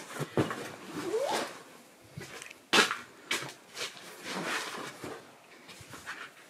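Upholstered chair cushions in fabric covers being handled and moved: rustling cloth and scattered soft knocks. There is a short rising squeak about a second in, and the sharpest knocks come a little before halfway.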